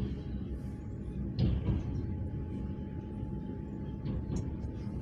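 Steady low rumble of a moving passenger train heard from inside the carriage: wheels running on the track. A brief knock comes about a second and a half in, and after it a faint steady whine.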